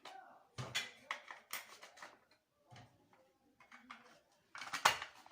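Irregular plastic clicks and knocks from handling a freshly reassembled circuit breaker.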